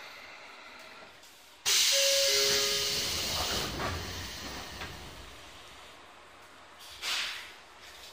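Compressed air hissing out of a Sotetsu 8000 series train's pneumatic system: a sudden loud blast that fades over a few seconds, with two short tones, one lower than the other, near its start. A second, shorter hiss of air follows near the end.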